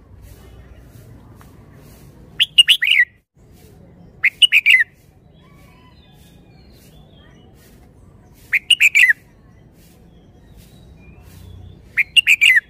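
Red-whiskered bulbul singing: four short phrases of several quick notes each, spaced a few seconds apart.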